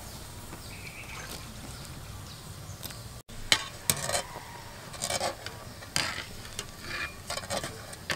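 Water boiling steadily in an aluminium pot. After about three seconds, a wire-mesh spider strainer stirs and scoops through the water and the dough balls, clinking and scraping against the pot's sides with splashing.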